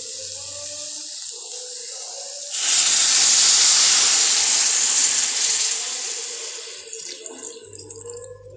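Water poured from a glass into a hot kadhai of fried soya chunks and masala. After a quieter start, the pour comes in with a loud rush about two and a half seconds in, runs for several seconds and fades out near the end.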